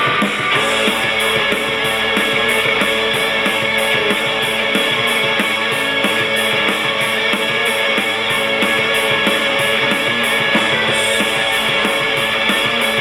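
Rock music with guitar played back through a small portable Bluetooth speaker, thin, with little bass.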